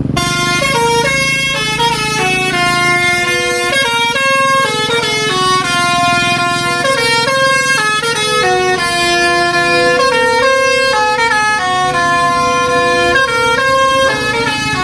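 Bus telolet horn, a set of multi-tone air horns, playing a running melody of short stepped notes without a break, over the low steady rumble of the bus engine.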